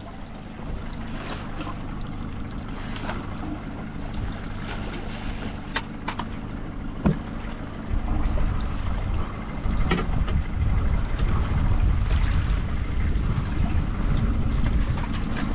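Wind buffeting the microphone over the low wash of water around a small boat at sea, with a few sharp knocks and clicks about six, seven and ten seconds in.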